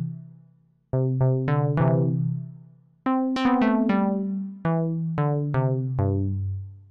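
Logic Pro X's ES P software synthesizer playing a short run of keyboard notes, each with a strong sharp attack and a long fading release, several notes overlapping. The notes come in quick clusters about a second in and about three seconds in, then singly. The lowest notes step down in pitch toward the end, and the last one fades out.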